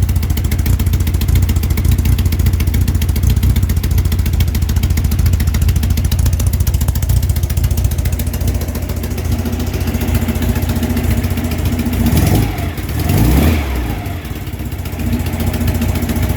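An engine running with a rapid, even ticking over its steady low rumble; about twelve seconds in, its pitch briefly rises and falls.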